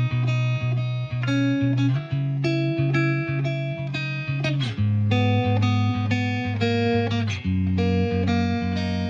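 Background music: a gentle instrumental with plucked guitar notes over a steady bass line.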